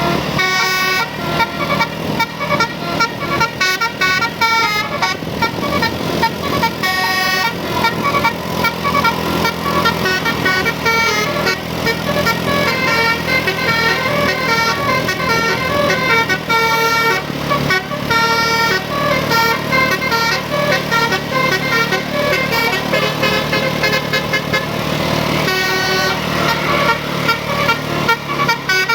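Basuri multi-tone vehicle horn playing a tune: quick runs of short notes mixed with held notes, going on without a break.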